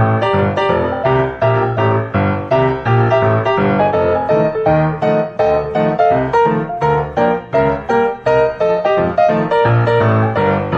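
Background piano music, a steady run of quick, evenly paced notes.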